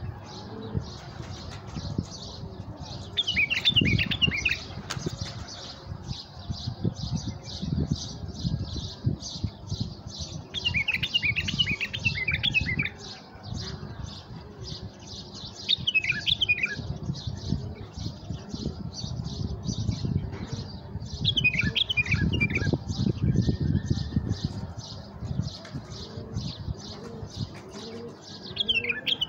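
Tame caged bulbuls calling as decoys, giving short bubbly warbling phrases about every five to six seconds. A fast, even high chirping runs underneath, with irregular low rumbling gusts.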